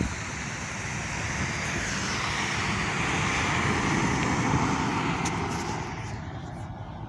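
A three-axle city bus driving past close by, its engine and tyre noise rising to a peak about four seconds in and then fading away.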